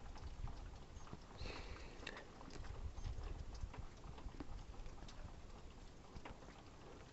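Faint scattered clicks and light knocks from hands, tools and parts working on an engine, over a low rumble.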